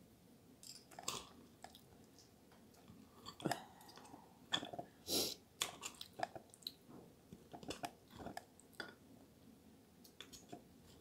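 Close-miked chewing of eggplant parmigiana, with many short clicks as a metal fork and knife cut and scrape in a glass baking dish. The loudest clicks come a little before the middle.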